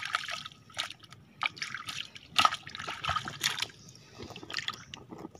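Hands digging and scooping wet mangrove mud under shallow water, reaching into a mud crab's burrow: irregular squelching and splashing, quieter toward the end.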